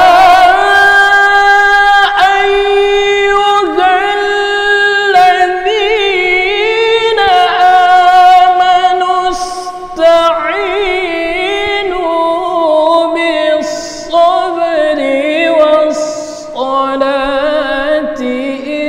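A male qari reciting the Quran in the melodic competition style of tilawah: one voice holding long, high notes with ornamented melismatic turns, pausing briefly for breath between phrases. The melody settles to a lower pitch in the last few seconds.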